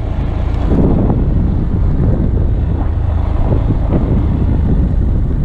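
Honda Grom's 125 cc single-cylinder engine running under way over grass, buffeted by heavy wind noise on the helmet camera's built-in microphone.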